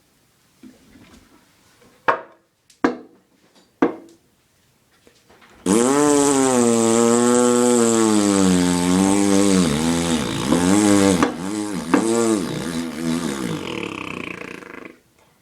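A long, loud, buzzy vocal warble with no words, its pitch swinging up and down, faster toward the end. It starts suddenly about five and a half seconds in and lasts about nine seconds. A few sharp knocks come before it.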